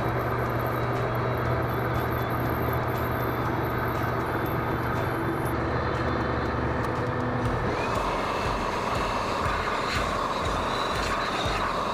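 Bridgeport milling machine running while a solid carbide end mill cuts a slot in soft gray cast iron, a steady low machine hum. About two-thirds of the way through, a shop vacuum starts up and sucks the cast-iron chips off the work, with a rushing whine and a high tone.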